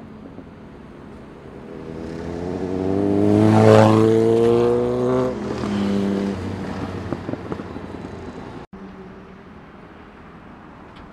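A sport motorcycle accelerating hard past, its engine pitch climbing steadily and peaking in loudness as it passes, then dropping once as it shifts up and fading away as it rides off.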